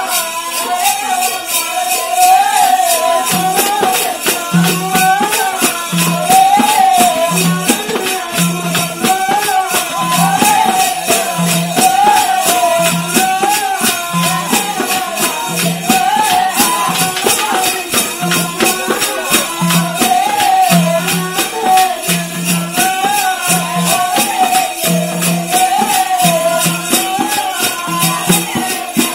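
Live folk music for a song performance: a fast, steady metallic jingling rhythm, a wavering ornamented melody line over it, and a low beat about once a second that joins a few seconds in.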